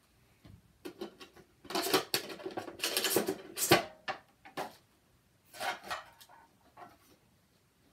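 Clattering and rustling of small objects being handled and set down: a run of irregular knocks and rustles, loudest about two to four seconds in, with a couple of shorter bursts later.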